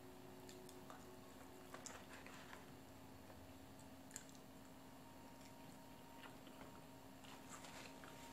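Faint chewing of fries and a sandwich, with a few small mouth clicks scattered through it, over a low steady room hum.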